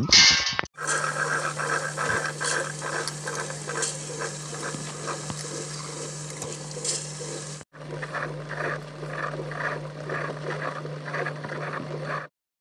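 Tabletop wet grinder running: its motor hums steadily while the stone roller rattles with rapid clicking in the steel drum, grinding soaked urad dal into batter. The sound breaks off for an instant about two-thirds through and cuts off suddenly near the end.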